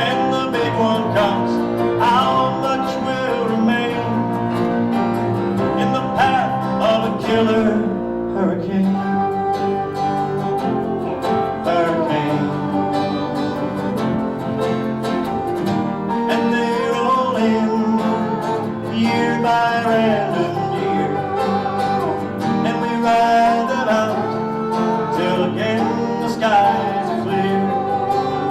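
Country-style acoustic band music: strummed acoustic guitar chords with a sliding melody line over them.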